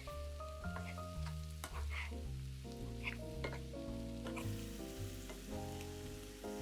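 Background music with a steady bass line and chords, over food sizzling as it fries in a pan, with scattered clicks and scrapes of a utensil stirring.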